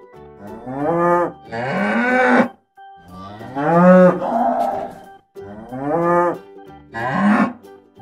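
Cows mooing: about five loud moos one after another, each about a second long with a brief pause between them.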